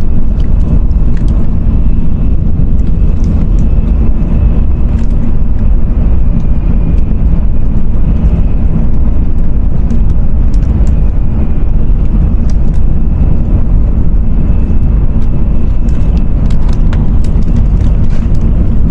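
Shinkansen bullet train running, a steady, unbroken low rumble with a faint high whine above it.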